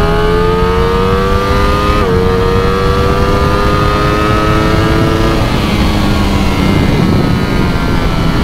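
Ducati Streetfighter V4's 1103 cc V4 engine pulling hard under full throttle: the revs climb, dip for a quick upshift about two seconds in, and climb again, then the throttle closes about five seconds in and the engine note falls away. Steady wind rush runs underneath.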